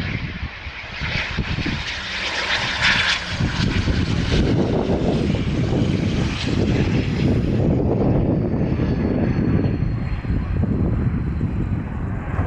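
Hawker Beechcraft 400XP's twin Pratt & Whitney Canada JT15D turbofans on the landing roll: a steady jet roar, loudest about two to three seconds in, with high whines that slide slowly down in pitch through the second half as the engines spool down.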